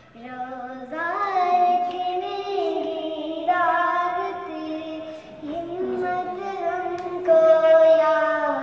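A young girl singing a devotional song solo, drawing out long held notes with a brief break about halfway through.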